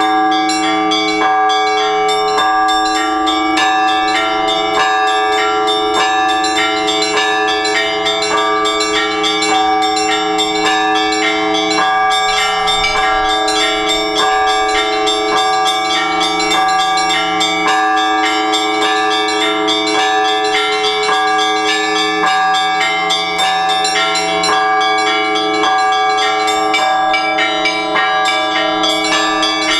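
Orthodox church bells ringing together in a continuous peal: small bells struck rapidly in a quick rhythm over deeper bells struck about once a second, their tones ringing on between strokes.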